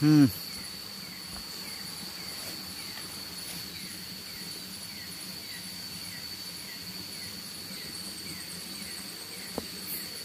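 Night insects calling: a steady high-pitched trill, with short falling chirps repeating about twice a second. A brief voice sounds right at the start.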